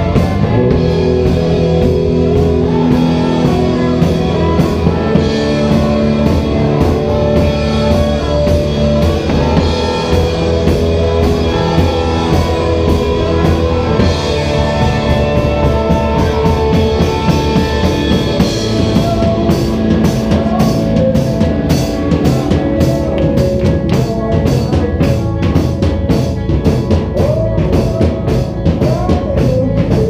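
A rock band playing live with drum kit, bass and electric guitars, with sustained chords throughout. About two-thirds of the way in, the drums settle into a steady run of sharp, evenly spaced hits.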